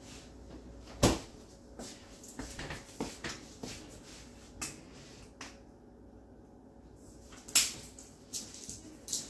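Scattered sharp clicks and knocks of things being handled in a kitchen, the loudest about a second in and again about seven and a half seconds in.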